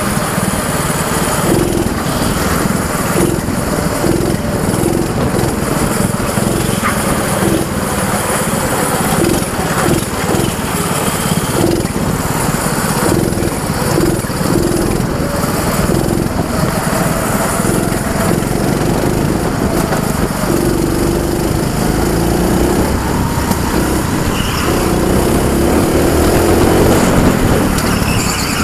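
A go-kart's small engine running continuously under power, recorded onboard the kart, as it laps the track.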